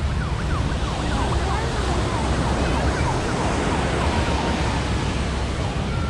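Wind buffeting the microphone over a steady wash of surf-like noise, with many short, high, whistle-like calls overlapping throughout.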